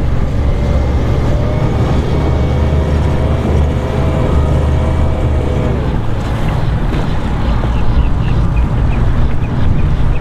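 Twin Suzuki 175 hp four-stroke outboard motors running at low speed as the boat pulls away, a steady low rumble with a whine that fades out about six seconds in. Faint high chirps repeat through the second half.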